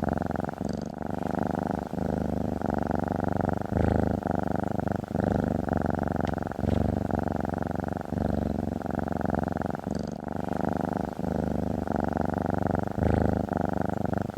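Domestic cat purring close up: a steady low rumble that pauses briefly every second or two.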